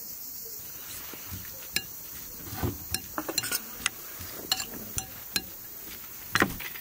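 Metal spoon clinking and scraping against a cut-glass bowl while tossing a chopped cucumber, tomato and onion salad: a string of sharp, irregular clinks, the loudest near the end.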